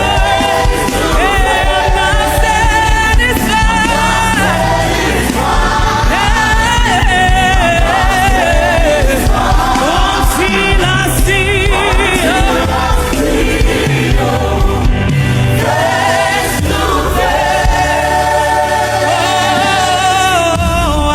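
Gospel worship music: a choir and singers holding long, wavering sung lines over a band with a steady beat.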